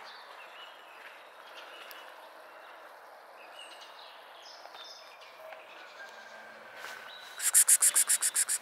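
Outdoor birdsong: faint, scattered chirps over a low background hiss. Near the end a loud, rapid rattling chatter starts, about seven harsh pulses a second, typical of a bird's alarm rattle.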